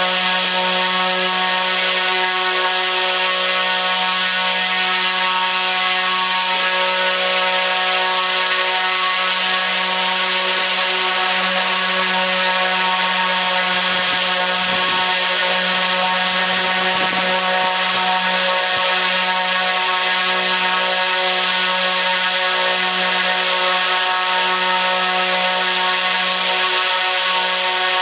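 T-Motor U13 100kV brushless motor spinning a 29-inch three-blade carbon propeller at full throttle: a loud, dead-steady buzzing drone with a stack of even overtones and a rush of air.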